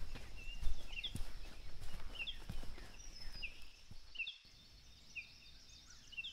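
Footsteps on the forest floor, a run of irregular soft thuds that fades out about four seconds in, with small birds chirping short repeated calls throughout.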